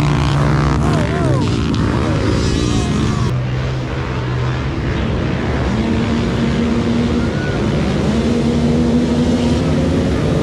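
Several mini quad engines running together, mostly holding steady revs, with a few rises and falls in pitch in the first couple of seconds.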